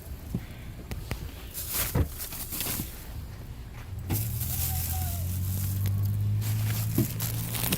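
A few light knocks and clatters of things being handled, then a steady low electric hum that starts about four seconds in and keeps going, like an appliance motor switched on.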